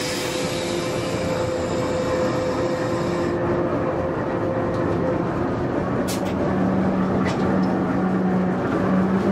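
Ruston and Hornby diesel locomotive engine running steadily, heard from inside the cab, with a hiss that stops about three seconds in and two short clicks later on. Near the end the engine note rises slightly as the locomotive eases forward.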